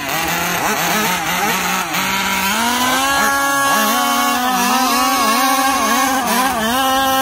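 Small two-stroke petrol engines of 1/5-scale RC dragsters running at the starting line and being blipped. About two and a half seconds in, the note steps up and holds high, dipping briefly about twice a second.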